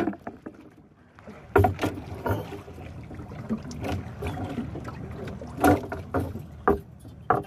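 Irregular knocks and rustling from handling a freshly speared barracuda and its line in a small wooden boat, over a steady background of wind and water.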